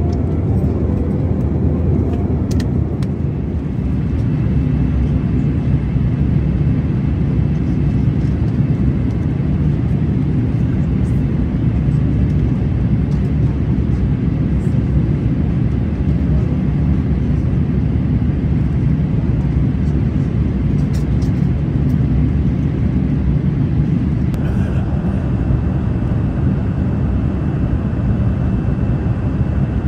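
Steady cabin noise of a Boeing 787-8 in flight, heard from a window seat beside the engine: a low, even rush of the jet engine and airflow, with a faint high whine joining a few seconds in.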